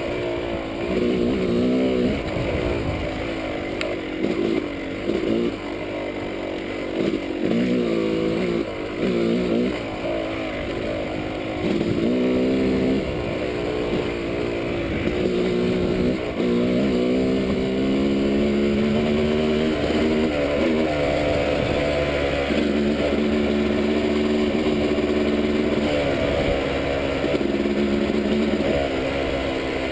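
Dirt bike engine under way on a trail, rising and falling in pitch again and again with the throttle in the first half. It then holds a steadier pitch in the second half.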